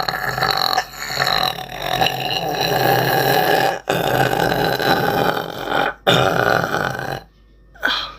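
A woman burping in long, drawn-out belches, broken by two brief pauses about four and six seconds in. The burping stops about seven seconds in, and one short burp follows near the end.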